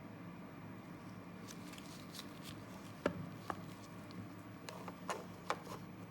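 Scattered light clicks and taps from a padlock and its keys being handled, irregularly spaced, over a faint steady hum.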